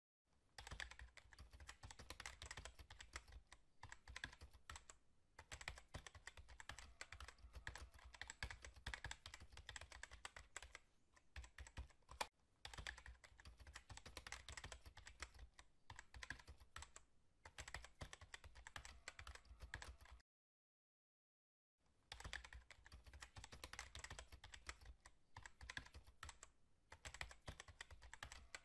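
Computer-keyboard typing sound effect: quiet, rapid key clicks running on, with a break of about a second and a half roughly two-thirds of the way through before the typing starts again.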